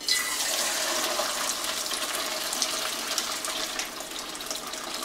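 Chicken bone broth being poured from a crock pot insert through a stainless steel colander, splashing steadily into the bowl beneath; the pour starts suddenly.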